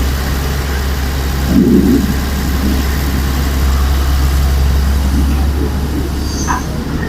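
Diesel engine of heavy earthmoving machinery running steadily with a deep hum, swelling briefly about a second and a half in.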